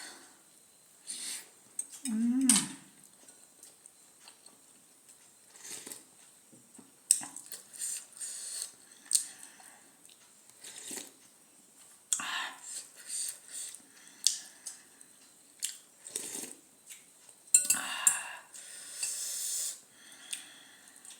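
Close-up eating of very spicy noodles and momo: a spoon and fork clinking on bowls, chewing, and repeated airy sucking sounds. One short low vocal hum about two seconds in.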